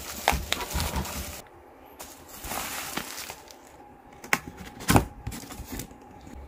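Handling of a parcel's bubble wrap and cardboard box: rustling and scraping of packaging with scattered clicks as fingers work the box's tucked-in flap open, and one sharp click about five seconds in.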